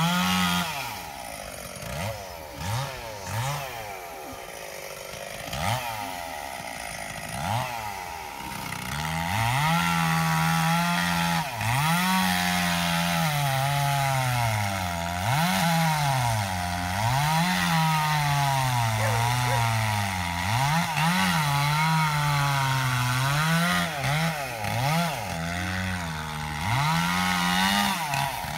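Two-stroke chainsaw, first idling with short blips of throttle. From about nine seconds in it runs at high revs while cutting a tree, its pitch dropping and climbing back again and again.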